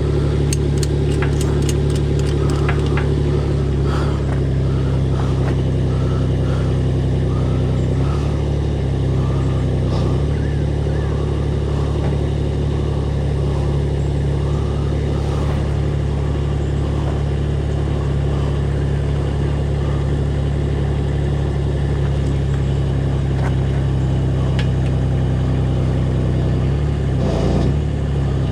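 Engine of the machine lifting the sawmill head, running steadily, with small shifts in engine note a few times as the load or throttle changes.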